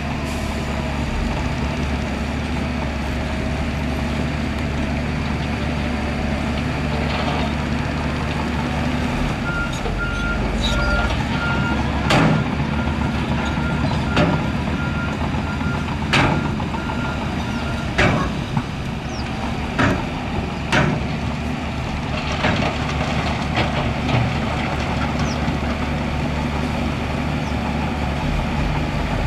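Heavy diesel earthmoving machinery running steadily, with a reversing alarm beeping for several seconds partway through. A series of sharp clanks, about one every two seconds, comes in the middle.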